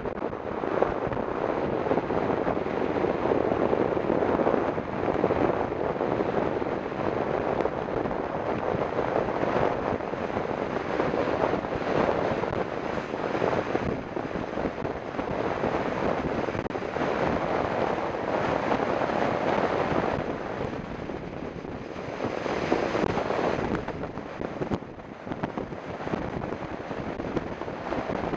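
Wind buffeting the microphone of a bike-mounted camera during a fast downhill mountain-bike ride on asphalt, a steady rushing noise that swells and eases, dipping briefly near the end.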